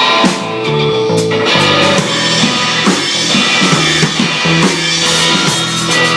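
Punk rock band jamming: drum kit and guitar playing together.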